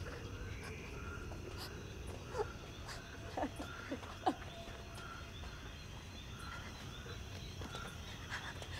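Night-time insect chorus: a steady high hum with short chirps repeating about once a second, and a few brief faint sounds in the first half.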